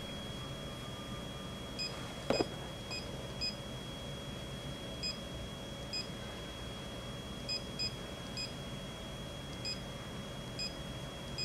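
Key-press beeps from a Sharp multifunction copier's touchscreen as an email address is typed on its on-screen keyboard: about a dozen short, high beeps at irregular intervals, one per key tap. There is a single soft knock about two seconds in, over a faint steady hum.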